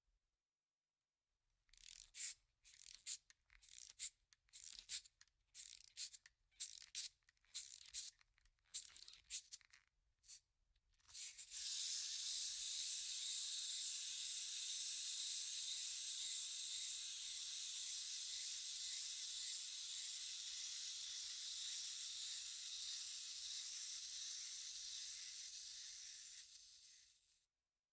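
Clockwork wind-up toy: its key is twisted in a dozen or more short rasping strokes over about nine seconds, then the released spring drives the mechanism in a steady high whir for about fifteen seconds, fading a little before it stops.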